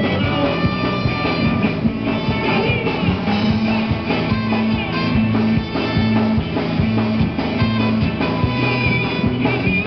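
Live amplified rock band playing a fast number with a steady drum beat, a pulsing bass line, electric guitar, keyboard and trombone, and a man singing into a hand-held microphone.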